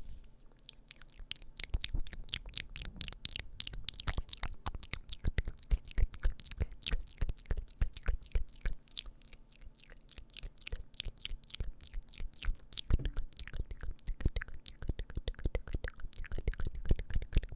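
ASMR mouth sounds close to the microphone: a rapid, irregular run of wet clicks and smacks, several a second, easing off for a moment midway.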